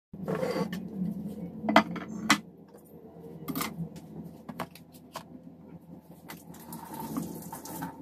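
A wooden cutting board and a kitchen knife being set down and handled on a tiled counter: a few sharp knocks and clatters, the loudest two close together about two seconds in, then lighter clicks.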